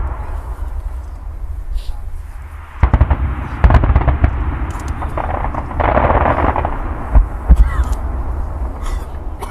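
Fireworks going off: a quick run of sharp bangs about three seconds in, a burst of crackling around six seconds, and a few more bangs after that, over a steady low rumble.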